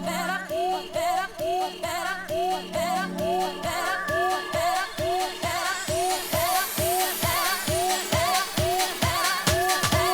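Speed garage dance music: a quick repeating riff of short pitch-bending notes, about two or three a second, over sliding bass notes. A rising hiss builds from about six seconds in.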